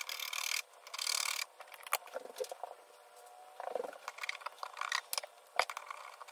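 Fingertips and a butter knife rubbing and scraping at sticky pop socket adhesive residue on a plastic phone case, in irregular scratchy strokes with a couple of sharp clicks. The glue has been softened with hand sanitizer and is peeling off.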